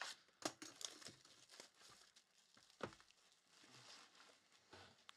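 Clear plastic shrink-wrap crinkling and tearing as it is stripped off a sealed trading-card box, in irregular sharp crackles.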